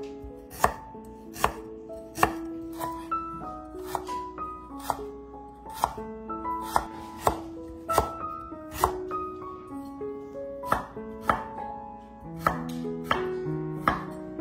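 A chef's knife chopping fresh ginger on a wooden cutting board: sharp knocks of the blade on the board a little more than once a second, over background music.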